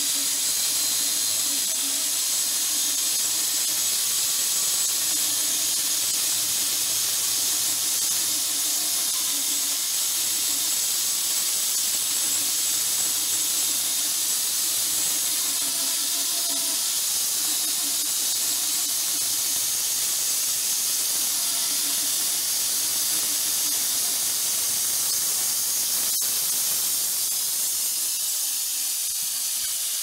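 Homemade electric band sawmill cutting through a pear log: a steady hiss of the blade in the wood over a faint wavering hum, easing slightly near the end as the cut finishes.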